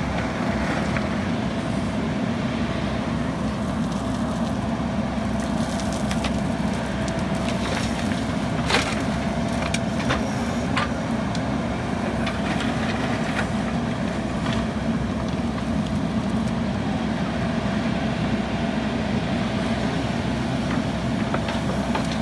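JCB backhoe loader's diesel engine running steadily, with scattered clatters and knocks of gravel being loaded into a dump truck, the sharpest about nine and eleven seconds in.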